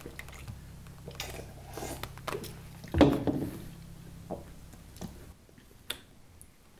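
Scattered light clicks and knocks of small objects being handled, with one louder knock about three seconds in, over a low steady hum that stops about five seconds in.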